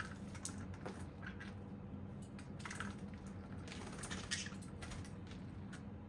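Light, irregular taps, clicks and brief rustles from green-cheeked conures moving about a wooden and rope play stand: claws and beaks on the perches, with a wing flutter.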